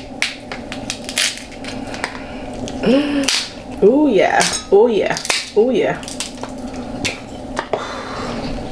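Close-miked eating of crab legs and shellfish: sharp clicks, cracks and wet squishes of shells and utensils. From about three to six seconds in there are a few short hums that rise and fall in pitch.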